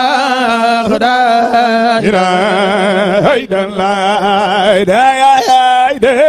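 A man's voice chanting Sufi dhikr (zikr) into a microphone, holding long notes with wavering, ornamented turns of pitch, with a brief break for breath about three and a half seconds in.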